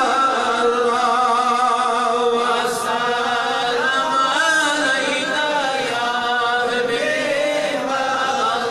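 A man's voice chanting in long, drawn-out notes that waver slowly up and down in pitch, amplified through microphones.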